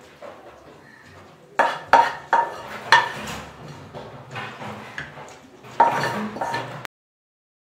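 Metal spoon clinking against a steel plate while cabbage stir-fry is spooned onto it. Four quick, ringing clinks come about two to three seconds in, then softer scraping, one more clink about six seconds in, and the sound cuts off suddenly.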